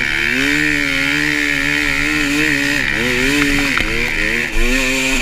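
KTM 300 XC-W two-stroke dirt bike engine running on varying throttle, its pitch rising and falling as the throttle is opened and eased off, with short drops about three and four seconds in.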